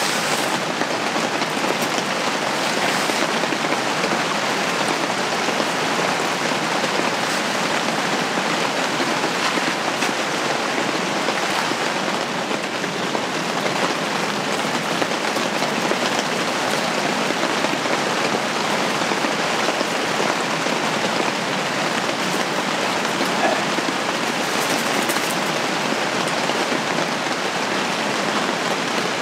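Steady rain falling on the fabric of a The Camper Ignis L tent shelter, heard from inside it, with an occasional louder drop standing out.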